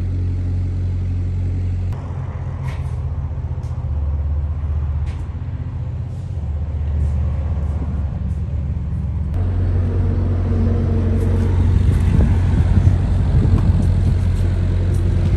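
A vehicle engine running steadily with a low, even hum; the sound changes abruptly about two seconds in and again about nine seconds in.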